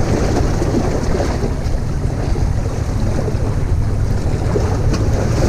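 Steady wind noise on the microphone, a low rumble, over the wash of sea waves breaking against rocks.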